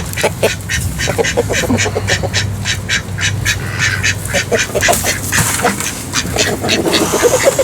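Ducks quacking in a rapid, continuous series of calls, several a second.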